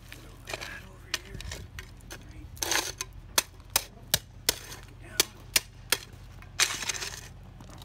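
GradrBlade hand scraper scraping and pushing bark mulch over crushed gravel, in two longer scrapes. Between them comes a run of sharp clicks, about two or three a second.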